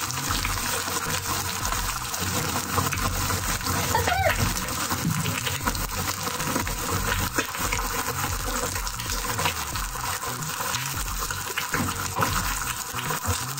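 Eggs frying in hot oil in a nonstick frying pan: a steady crackling sizzle with many small spatters, a rain-like sound.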